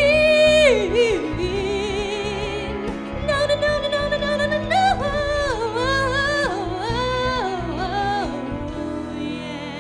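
A man singing over a backing music track: long held notes with wide vibrato, sliding up and down between pitches, and fading out near the end.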